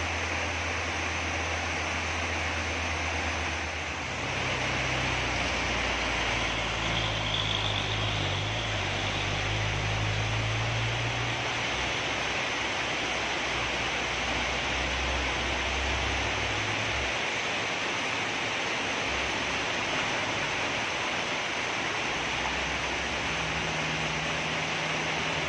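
Steady hiss of heavy rain, with the low drone of truck engines pulling up a steep hairpin bend; the engine note comes and goes and shifts several times as different trucks pass.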